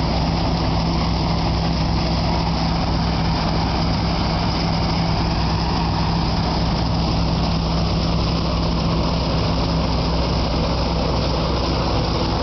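Massey Ferguson 525 combine harvester running steadily at constant engine speed, a steady low hum with machinery noise over it.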